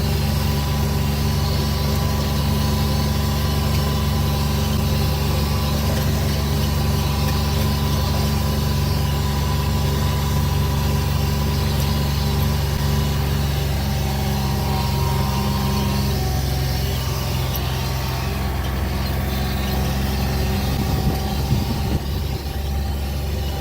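A motor vehicle's engine running steadily as it drives along, with a low even hum and a few knocks and jolts near the end.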